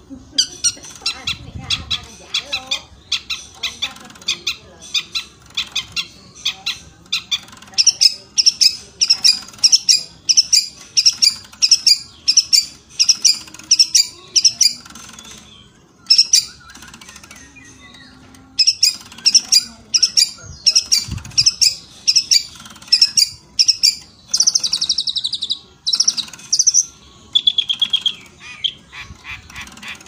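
Cendet Madura (pale long-tailed shrike) singing: a fast chatter of sharp, rapidly repeated notes in long runs. It breaks off for a few seconds about halfway, then goes on with a few longer sliding notes near the end.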